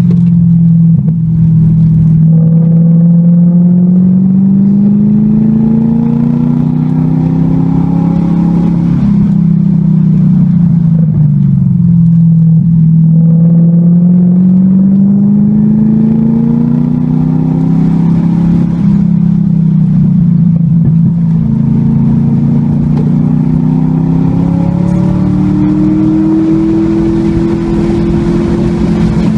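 Car engine heard from inside the cabin, pulling under hard acceleration: its pitch climbs, drops back about 9 seconds in as the car slows for a corner, climbs again, dips once more around 18 seconds in, then rises steadily as the car gathers speed. Road and wind noise run underneath.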